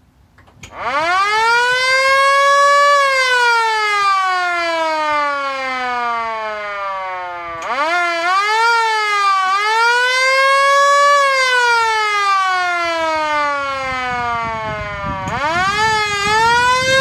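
Siren on a 1965 Ford F-500 fire truck being sounded in bursts: it rises to a high wail about a second in, then slowly falls in pitch. It is blipped back up with a few quick wobbles about eight seconds in, rises and falls again, and is started once more near the end.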